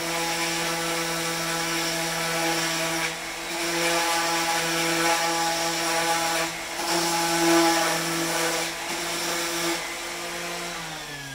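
Porter-Cable 333 random orbit sander running steadily on a wooden frame piece, with a few brief dips in the sound. Near the end it is switched off and its motor winds down, the pitch falling.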